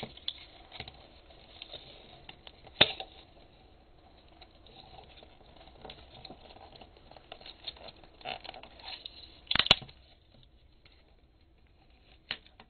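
Plastic case of a disposable 35mm film camera being pried apart by hand: light scraping and rustling with small clicks, and sharp snaps as the case's snap catches let go, loudest about 3 seconds in and near 10 seconds in.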